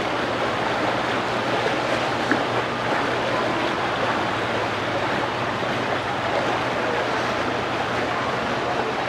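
Steady rushing of running water, with a faint steady low hum underneath.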